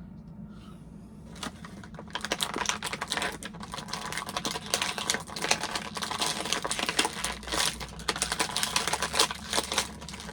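Action figure's plastic packaging tray and parts being handled: a dense run of rapid clicks and crackles, starting about a second and a half in.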